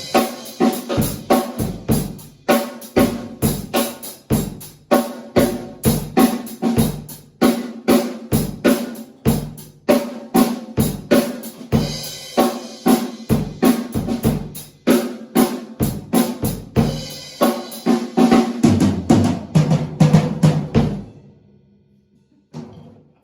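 Acoustic drum kit played in a driving groove, bass drum, snare and cymbals hit in a steady rhythm, with a denser fill near the end before the playing stops about 21 seconds in.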